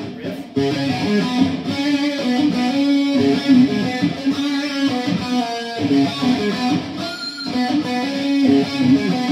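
Electric guitar in standard tuning playing a rock riff, with a pinch harmonic picked into it.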